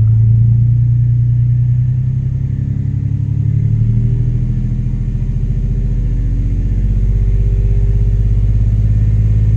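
The 3.5-litre V6 of a 2003 Infiniti G35 running rough with a misfire, the check engine light flashing. It is held a little above idle, and its speed shifts slightly partway through.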